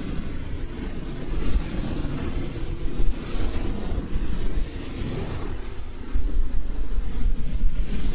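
Sea surf breaking and washing up on a sandy beach, with wind buffeting the microphone in gusts as a heavy low rumble.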